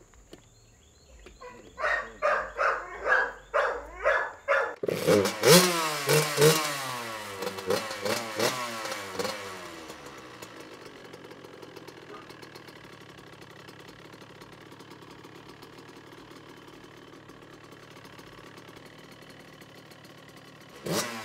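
Suzuki RM85's 85 cc single-cylinder two-stroke engine being started after the bike has sat unused for a while: a quick run of sharp pops for a couple of seconds, then it catches about five seconds in and is revved up and down several times before settling to a steady idle.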